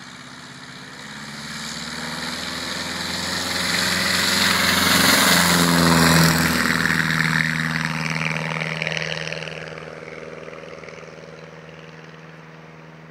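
Glasair Sportsman 2+2 light aircraft at full takeoff power, its engine and propeller growing louder as it comes down the strip, passing close about six seconds in with a drop in pitch, then fading as it climbs away.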